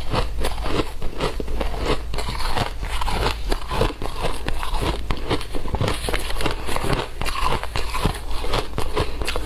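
Shaved ice being bitten and chewed: a continuous run of crisp crunches, several a second.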